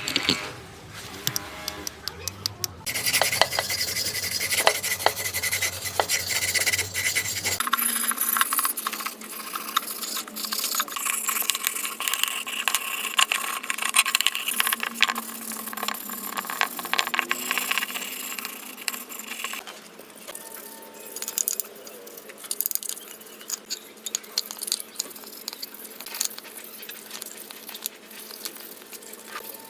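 Hand work on metal motorcycle parts: many sharp clinks and taps over scraping and rubbing. It comes in several short stretches that change abruptly, about three seconds in, halfway through and two-thirds of the way through.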